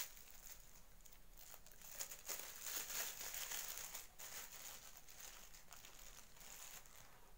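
Small clear plastic bag of glitter crinkling as it is handled, in quick crackly rustles that are loudest from about two to four seconds in.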